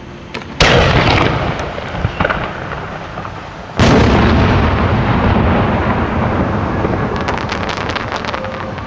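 Large 10- to 12-inch aerial firework shells: a heavy boom under a second in, then about three seconds later a louder shell burst, each followed by a long rolling echo off the valley. Near the end comes a brief spatter of crackles.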